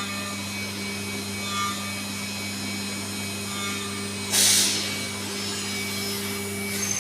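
CNC milling machine running: a steady hum with several constant whining tones, and a short loud hiss about four and a half seconds in.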